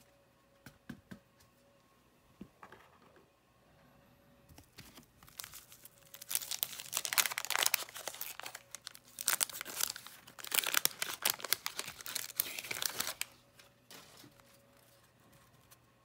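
A 1991 Fleer basketball card pack being torn open by hand, its wrapper tearing and crinkling in two stretches of loud crackling from about five to thirteen seconds in. There are a few light clicks near the start.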